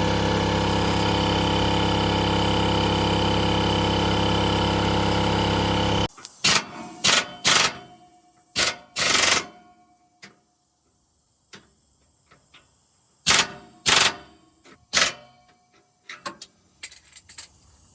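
A steady mechanical drone for about six seconds that cuts off suddenly, then about ten short bursts of a pneumatic impact wrench hammering at a seized catalytic-converter bolt.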